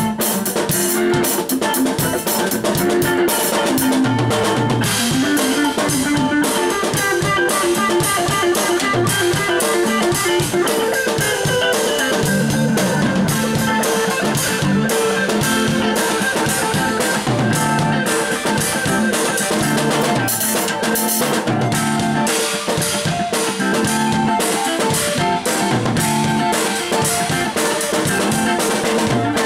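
Instrumental music with a drum kit beat and guitar, playing steadily.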